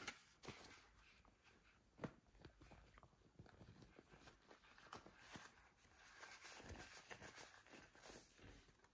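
Faint rustling and crinkling of a white tissue-paper wrap being unwrapped from a TV remote in the hands, with a light tap about two seconds in.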